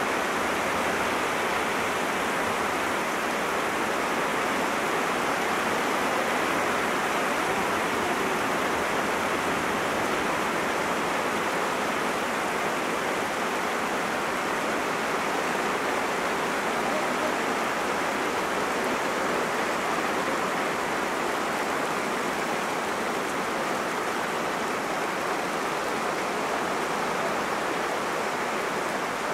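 Heavy rain falling steadily, a constant even hiss with no breaks.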